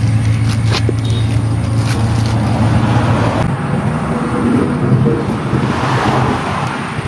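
A motor engine runs with a steady low hum close by, while plastic bags rustle as an eel is handled and cut.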